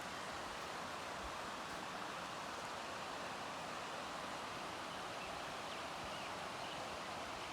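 Waterfall and creek water rushing steadily, an even hiss with no breaks.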